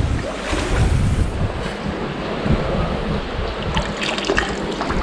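Wind gusting on the microphone over the steady rush of a fast-flowing river, with a few short clicks about four seconds in.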